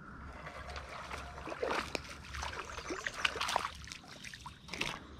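Creek water splashing and sloshing in short irregular bursts.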